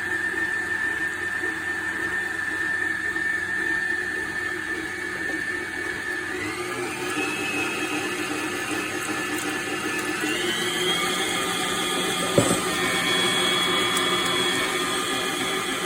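Electric stand mixer (HOWORK 8.5-quart, 660 W tilt-head) running, its motor whining steadily and stepping up in pitch twice, about six and ten seconds in, as it is switched to higher speeds. A short click comes about twelve seconds in. It is a little loud.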